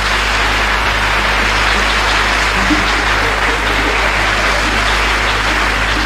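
Concert audience applauding steadily, with a few faint plucked string notes and a low mains hum underneath.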